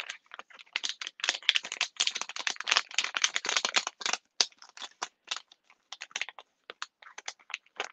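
Plastic packaging crinkling and rustling as a sticker is pulled out of its pack: a dense, irregular crackle that thins out toward the end.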